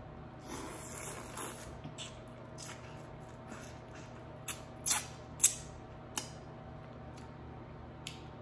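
Close-miked eating of seasoned soft-shell crab: a short crunchy rustle, then a few sharp crackling clicks of biting and chewing, the loudest about five and a half seconds in.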